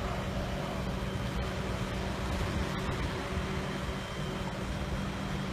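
Tow truck's engine running steadily, a constant low hum.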